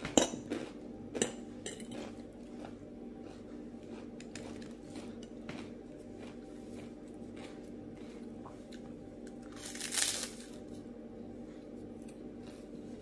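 Metal fork clinking against a plate while spearing chopped salad, with a few sharp clinks in the first second or so, then soft eating sounds and a short crunchy bite of a puffed rice cake about ten seconds in.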